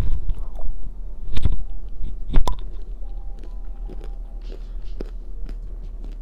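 Close-miked eating: a person biting into and chewing crunchy food, with two loud crunching bites about one and a half and two and a half seconds in, followed by quieter chewing.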